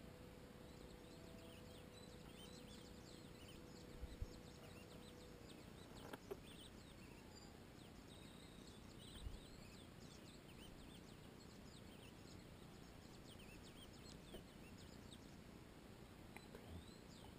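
Faint chirps and short calls of small songbirds over a very quiet countryside background. A faint steady hum stops about five seconds in, and a few soft low bumps come around four and nine seconds in.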